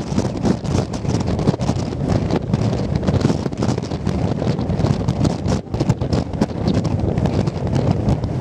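Wind buffeting the camera microphone: a loud, continuous low rumble that flutters with the gusts.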